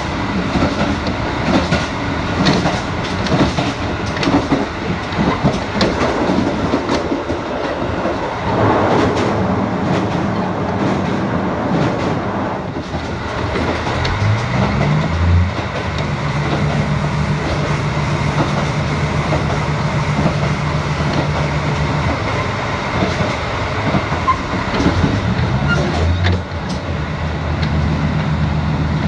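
A JR Central KiHa 85 series diesel express train running, its wheels clacking over rail joints. Twice, about halfway through and again near the end, the Cummins diesel engines' note rises and then holds steady.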